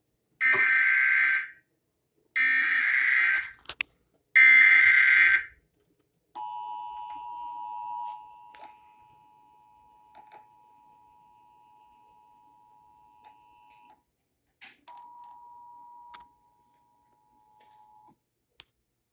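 Emergency Alert System test on broadcast radio. Three loud bursts of SAME header data, a shrill warbling digital chirp about a second long each, are followed by the steady two-note EAS attention signal. The attention signal fades down a couple of seconds in, breaks off and comes back briefly near the end.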